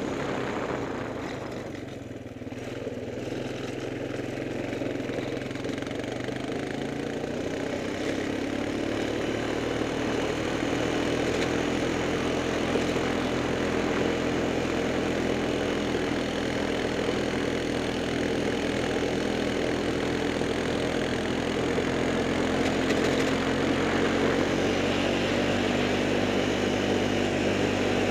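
A small vehicle's engine running as it drives on a gravel road, over steady road noise. It eases off briefly about two seconds in, then rises in pitch and level as it picks up speed, and runs steadily after that.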